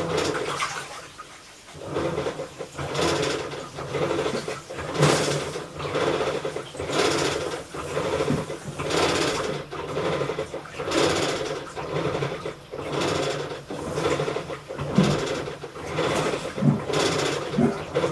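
Hitachi Shiroi Yakusoku top-loading washing machine agitating with a creaking, grinding noise like rusty gears, repeating about once a second. The uploader does not know the cause of this abnormal noise.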